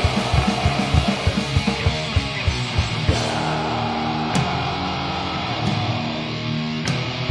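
A heavy metal band playing live on drums, bass and electric guitar. Rapid drum beats drive the first two seconds, then the band holds sustained chords with a few cymbal crashes.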